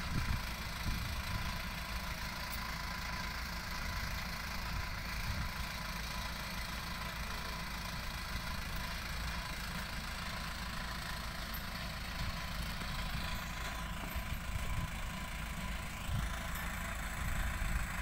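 Engines running steadily at idle, with an uneven low rumble.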